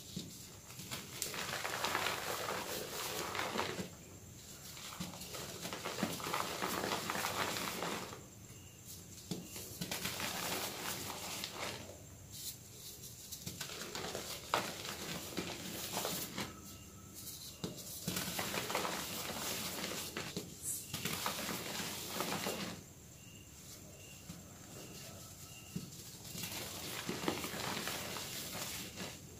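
Hands squeezing and crushing lumps of reformed gym chalk, dense crunching and crumbling with sharp little cracks, in stretches of a few seconds broken by short softer pauses as powder sifts through the fingers.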